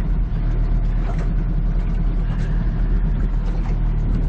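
A small runabout boat's outboard motor running steadily with the boat under way.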